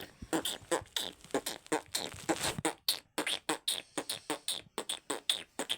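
A boy beatboxing: a fast run of sharp mouth clicks, pops and hissing hi-hat sounds, several a second, imitating a DJ remix beat.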